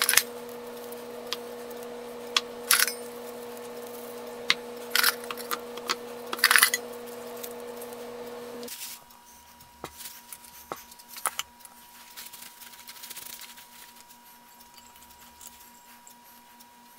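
Steel pipe-threader die pins and their spring clips being handled and set down on a towel-covered bench: short metal clinks and clicks, several sharp ones in the first nine seconds, then softer scattered clicks and handling noise.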